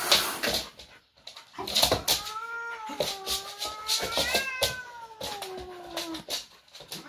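White cat yowling: one long, drawn-out caterwaul starting about two seconds in, rising in pitch and then sliding down over about four seconds, a warning at the dog facing it. Short scuffing knocks sound around it.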